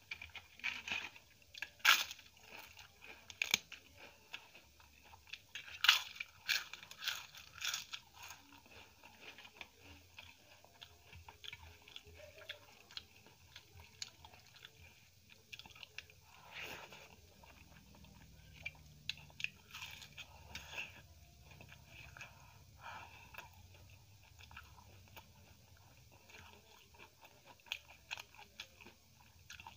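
Close-up eating sounds: a person chewing and biting into crisp fried food, with a run of loud, sharp crunches in the first eight seconds or so, then softer, quieter chewing.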